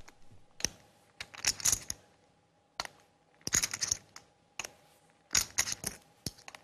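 Clay poker chips clicking together in short clattering runs about once a second, as a player handles them at the table.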